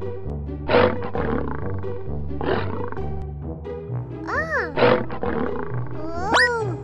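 Tiger roaring and growling several times over background music with a steady bass line; two of the calls rise and fall in pitch near the end.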